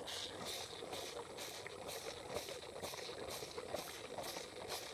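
Young bull sucking milk from a feeding bottle, with faint slurping and gulping as he drains it fast. An even, rapid high pulsing runs behind it.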